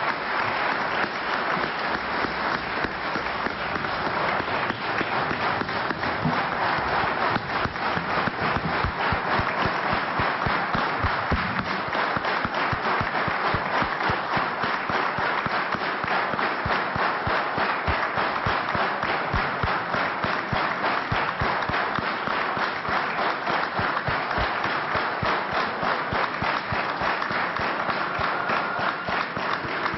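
Sustained applause from a large crowd of members of parliament clapping together.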